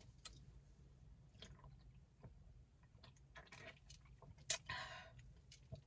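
Faint chewing and small mouth clicks from a person eating, with one louder noisy moment about four and a half seconds in.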